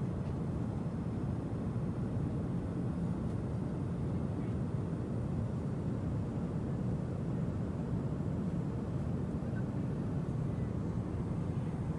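Steady low cabin noise of a Boeing 777-200ER airliner in flight: the even rush of engines and airflow heard inside the passenger cabin.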